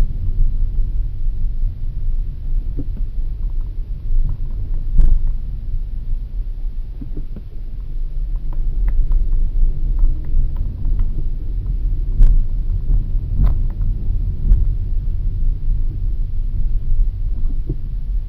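Low, steady rumble of a Skoda Octavia A7 creeping along at walking pace, heard inside its cabin. A few short sharp knocks break in, about five seconds in and a few more around twelve to fifteen seconds in.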